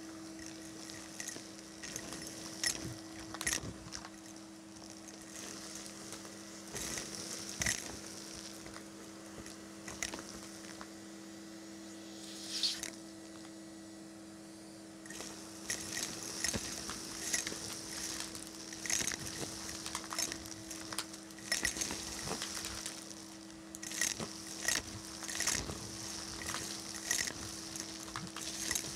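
Vacuum cleaner running with a steady motor hum, its bare metal wand sucking fluff and small hard debris off carpet. Frequent irregular clicks and rattles as grit and beads shoot up the tube.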